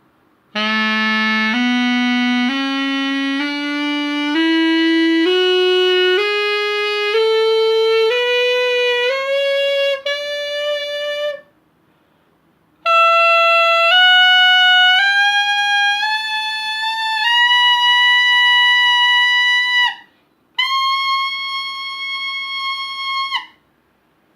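Bamboo sax (xaphoon) in A playing a slow rising scale, about one note a second, up through its low register. After a short pause it carries on climbing through the high register and ends on two long held top notes.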